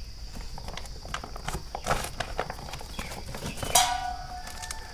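Small fish tipped from a woven plastic sack into a stainless steel bowl: irregular light knocks and slaps against the metal. One louder knock just before four seconds in leaves the bowl ringing.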